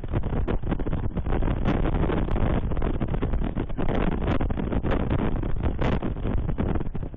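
Wind buffeting the microphone of an osprey nest camera: a continuous gusty rumble broken by many short thumps.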